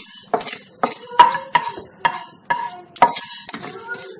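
Wooden spatula scraping and stirring mustard and fenugreek seeds as they dry-roast in a frying pan, in even strokes about twice a second.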